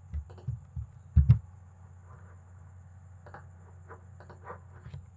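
A few short computer mouse and keyboard clicks as text is copied and Word windows are switched, the loudest a low knock about a second in, over a faint steady electrical hum.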